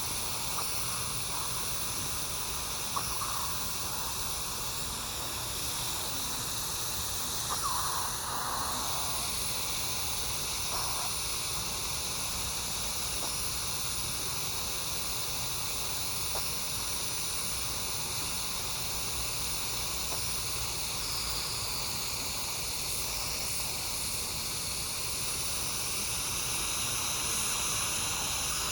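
Steady background hiss, with a few faint, brief sounds about 3, 8 and 11 seconds in.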